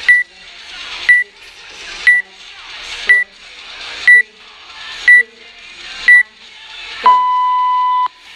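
Workout countdown timer beeping: seven short high beeps a second apart, then one long, lower beep lasting about a second that signals the start. Background music underneath.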